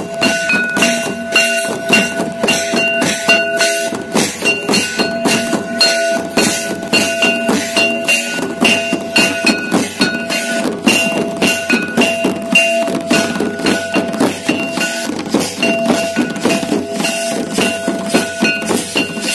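A Santali drum band playing a fast, steady beat: large bowl-shaped kettle drums struck with sticks and a barrel drum, with metallic clinks. Over it runs a steady high note that breaks off and comes back every second or so.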